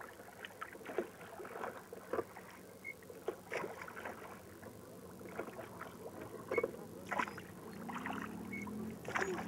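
Oars of a small rowboat dipping and pulling through the water: irregular short splashes and knocks, about one or two a second, over the lap of water against the hull.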